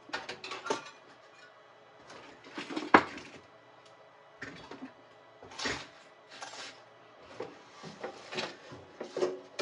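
Tools and small metal parts being picked up and set down on a workbench, with the long metal casing of a heat pillar heater shifted across it: scattered clicks, clatters and scrapes, with one sharp knock about three seconds in.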